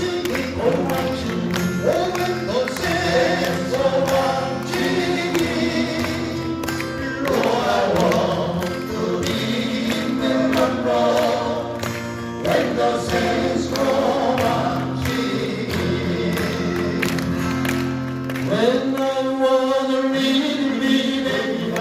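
Male vocal quartet singing in harmony to strummed acoustic guitars.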